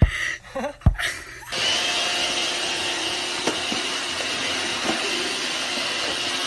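Robot vacuum cleaner running: a steady whirring hiss with a high whine, starting about a second and a half in. Two sharp knocks come before it.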